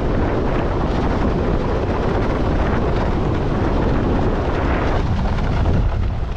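Steady wind noise buffeting the microphone, mixed with water rushing past a sailboard.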